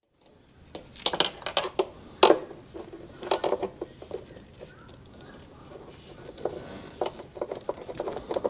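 Irregular clicks, crinkles and rustles of hands working tape around a headlight wiring connector.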